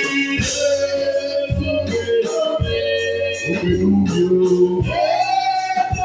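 Church gospel singing with keyboard organ accompaniment and a steady percussion beat about twice a second.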